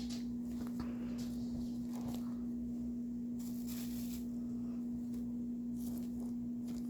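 A steady low hum with faint, scattered rustles from a cloth doll body and its stuffing being handled.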